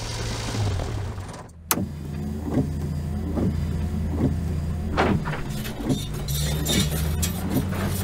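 Truck engine sound running steadily with a low drone and a pulse that repeats a little more than once a second. There is a sharp click about a second and a half in.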